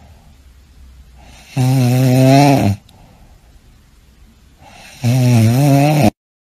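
Loud snoring, likely from a sleeping pet: two long wavering snores about three seconds apart, with quieter breathing between them.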